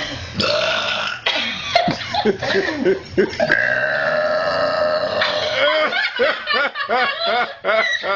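A girl belching loudly in a long run of burps, one held steady for nearly two seconds in the middle, then a string of short burped syllables.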